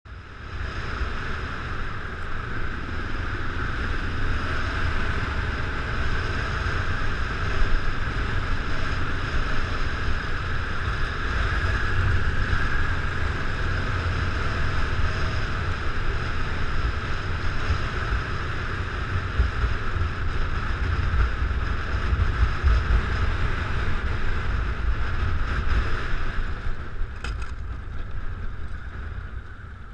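Motorcycle ridden over a dirt track, heard through a bike-mounted action camera: steady engine and tyre noise under heavy wind rumble on the microphone. A few sharp clicks come about 27 seconds in, and the noise eases as the bike slows near the end.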